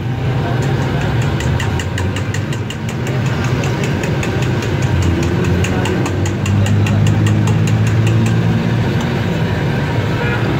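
A steady low engine-like hum with a fast, even ticking, about five ticks a second, that stops about eight seconds in.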